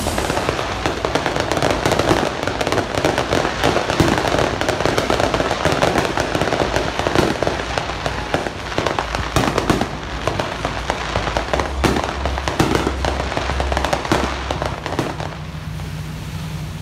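Aerial fireworks display bursting in quick succession, a dense run of bangs and crackle with heavier booms in the second half, dying away near the end.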